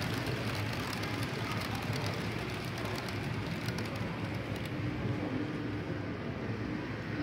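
Model railway trains running on the layout: a steady rumble and hum of small motors and wheels on track, with fine rapid clicking of wheels over rail joints that fades out about halfway through.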